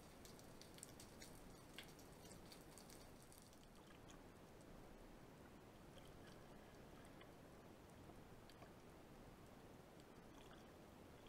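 Near silence: faint underwater hiss with scattered faint clicks and ticks, denser in the first few seconds.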